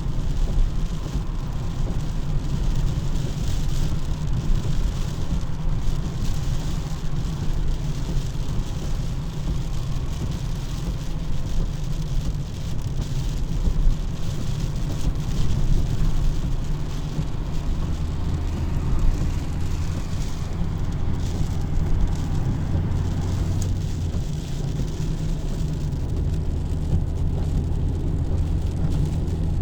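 Car on a wet road in the rain: a steady low rumble of engine and tyres under a continuous hiss of rain.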